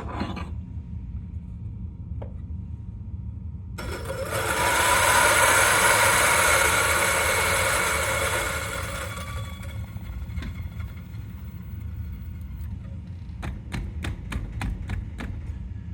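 Turin DF83V 83 mm flat-burr coffee grinder, set at 700 RPM, grinding an 8 g dose of dark-roast espresso beans. The grinding starts suddenly about four seconds in and fades out over several seconds as the dose runs through. Near the end there is a quick run of sharp taps.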